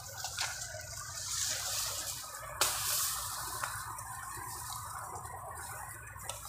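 Leaves and grass stalks rustling and swishing as a person pushes through dense undergrowth and grabs at elephant grass, with a sharp snap about two and a half seconds in and a fainter one a second later, over a low steady rumble.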